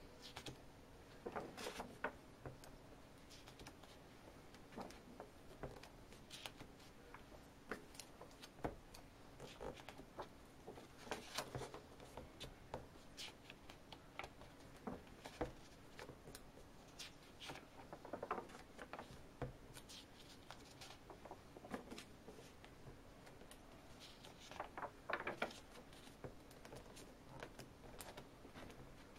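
Pages of a thick hand-made chronicle book being turned and handled: soft paper rustles and light taps, with a few louder bursts of rustling as pages are turned over, and a faint steady hum underneath.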